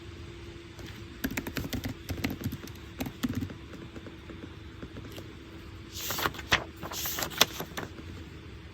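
Desk sounds of someone studying: a run of light clicks and knocks, then a few seconds of rustling with more clicks about six seconds in, over a steady low hum.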